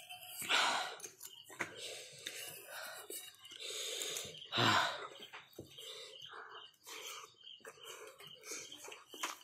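Close-up mouth sounds of a person eating extremely spicy instant noodles, with two loud hissing breaths from the chilli heat, about half a second in and just before the middle.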